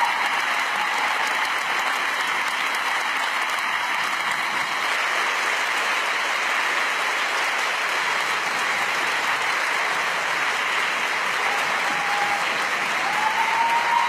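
Sustained applause from the members of a legislative assembly, a dense, steady clapping that greets the end of a speech.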